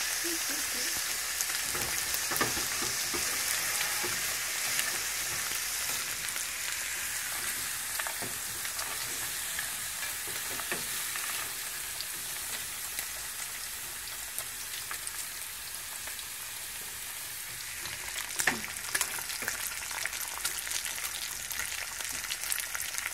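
Bacon strips frying in a pan: a steady sizzling hiss with scattered crackles and pops. A cluster of louder knocks and pops comes a few seconds before the end.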